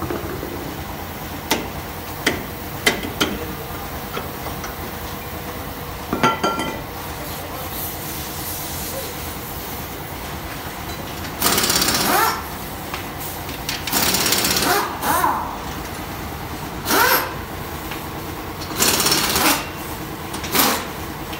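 Pneumatic impact wrench run in short bursts, about six of them in the second half, over a steady workshop hum, with a few sharp metal clinks in the first seconds.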